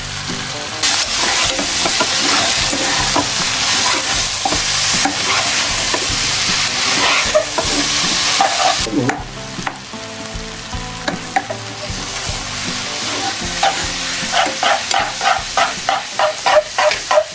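Chowmein noodles and vegetables stir-frying in a hot kadhai: a loud sizzle that dies down about halfway through, then a quick run of spatula strokes scraping and knocking against the pan near the end, about three or four a second.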